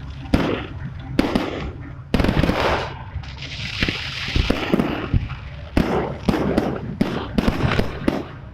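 Aerial fireworks bursting overhead: a string of sharp, irregularly spaced bangs, with a few seconds of crackling near the middle.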